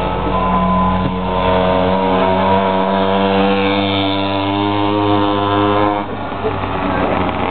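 Pocketbike's small two-stroke engine held at high revs at a steady pitch, dropping away and breaking up about six seconds in.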